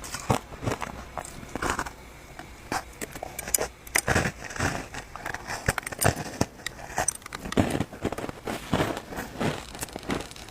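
Ice being bitten and chewed close to the microphone: irregular crunches and sharp cracks, several a second, with brief pauses.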